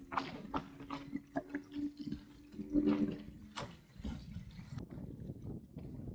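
Water splashing and gurgling along the hull of a Sunfish sailing dinghy under way, in uneven splashes, with a steady low hum during the first three or four seconds.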